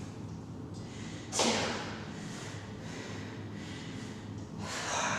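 A woman breathing hard while exercising: a sharp, forceful exhale about a second and a half in and another near the end, over a low steady hum.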